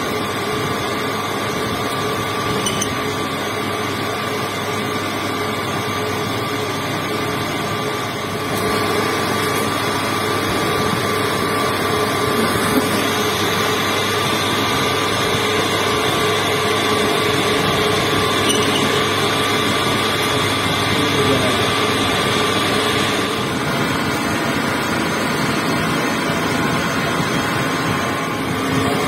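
Metal lathe running steadily with the chuck spinning as a cutting tool turns down a metal shaft. A higher-pitched tone joins for about ten seconds in the middle.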